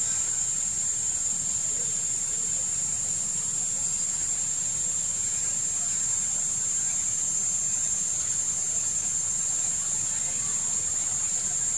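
Steady, unbroken high-pitched drone of an insect chorus, over a low background rumble.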